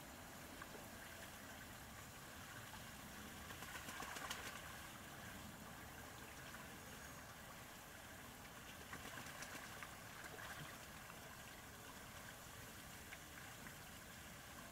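Domestic ducks paddling and dabbling in a shallow plastic tub of water: faint splashing and trickling over a steady low hiss, a little louder about four seconds in and again around nine to ten seconds.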